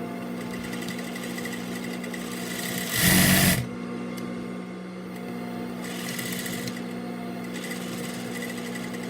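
Juki industrial sewing machine being run at varying speeds from its pedal, its motor humming steadily throughout. A brief loud fast run comes about three seconds in, then quieter, slower stitching with a light rapid ticking.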